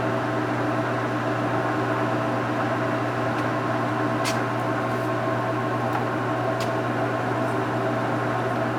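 Kingston HJ-1100 gear-head lathe running steadily at low spindle speed, a constant hum and gear whine with a few light clicks partway through.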